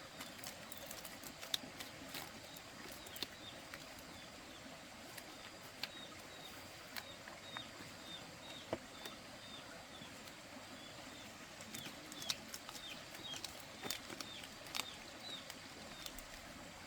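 Birds cheeping: many short, high chirps, each dropping at its end, coming in loose runs, with scattered sharp clicks and taps among them.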